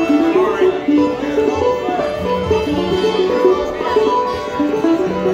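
Acoustic bluegrass band playing live, with banjo, guitar, mandolin, fiddle and upright bass, in quick runs of picked notes over a bass line.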